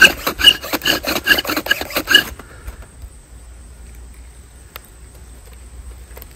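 Bow drill at full speed: the cedar spindle grinding and squeaking in the hearth board's notch with each bow stroke, about four to five strokes a second. This is the final hard push that ignites the packed dust into a coal. It stops about two seconds in.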